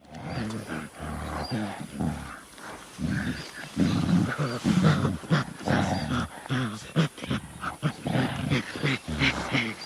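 Gorilla vocalizing: a rapid, irregular series of short, low calls that starts suddenly after silence.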